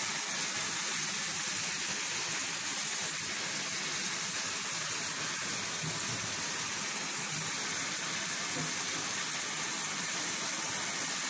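Sliced onions frying in hot oil in a pan: a steady sizzle.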